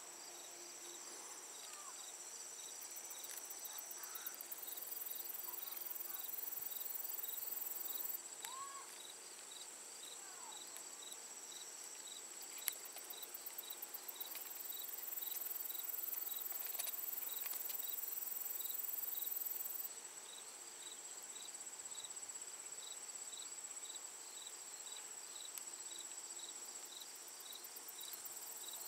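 Late-summer evening insect chorus: a steady high trill under a regular chirp about twice a second. A higher, faster buzzing joins in twice and each time cuts off suddenly.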